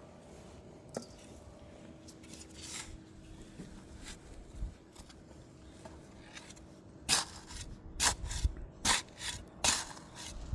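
Digging in garden soil: after a few quiet seconds, a quick run of scraping, crunching strokes into the dirt near the end.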